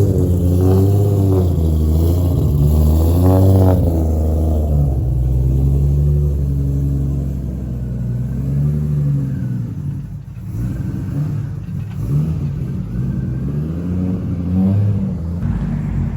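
A turbocharged RB26 straight-six engine revving, its pitch rising and falling in quick blips for the first few seconds, then running more steadily with smaller swells in revs.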